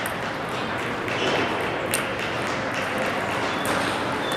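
Table tennis ball clicking off the paddles and table during a rally, with sharp ticks about every second or two over the steady hubbub of a large hall full of other tables.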